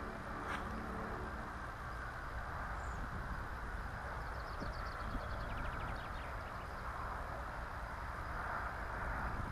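Steady outdoor noise with a low rumble of wind on the microphone. About halfway through there is a brief, rapid high ticking trill.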